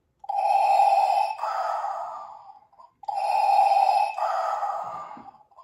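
Electronic Darth Vader Funko Pop figure playing Vader's breathing sound effect through its small built-in speaker. There are two in-and-out breaths, each hissing in and then out.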